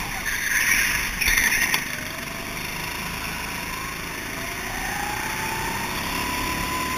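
Go-kart engine running under the driver, its pitch climbing steadily through the middle as the kart accelerates and then levelling off. Near the start there is a short loud rushing noise.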